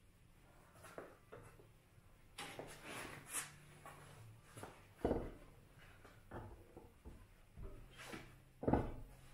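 A rubber car tyre being handled and set down onto an alloy wheel clamped on a tyre changer: scuffing and rustling with scattered knocks, and two heavier thuds, one about five seconds in and one near the end as the tyre lands on the rim.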